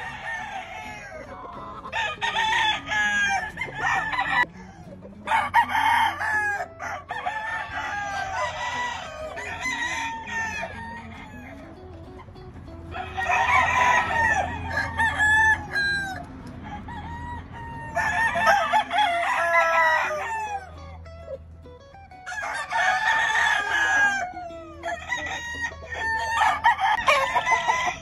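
Several roosters crowing, in turn and overlapping, a fresh round of crows every few seconds.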